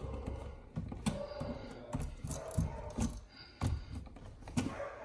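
Irregular light clicks and rattles of bare copper ground wires being twisted together by hand in an electrical outlet box.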